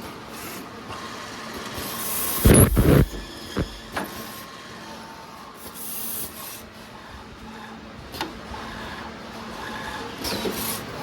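Copper tube end forming machine cycling: short pneumatic hisses, a heavy double thump about two and a half seconds in, and sharp clicks around four and eight seconds in.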